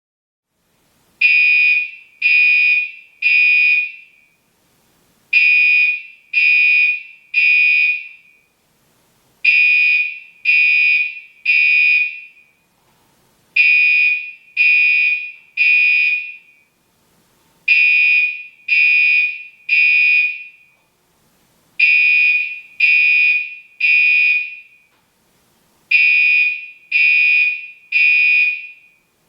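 Gentex Commander 3 (GEC3-24WR, 24 V DC) fire alarm horn sounding the temporal-3 evacuation pattern. It gives three short, loud, high-pitched blasts, then a pause of over a second, with the group repeating about every four seconds. Seven groups are heard, and each blast tails off briefly.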